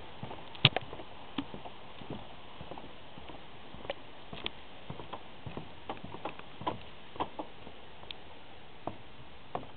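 Irregular footsteps and knocks on a suspension bridge deck as it is walked across, over a steady hiss. The loudest knock comes just under a second in.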